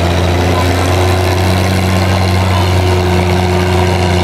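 Oliver Super 77 tractor's six-cylinder engine running steadily under load as it pulls the sled down the track, a constant low drone with no change in revs.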